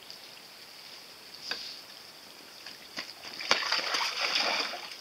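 A small toy foil boat towed on a string splashes and skims across the water. A sharp knock about three and a half seconds in is followed by about a second of splashing, with fainter clicks a little earlier.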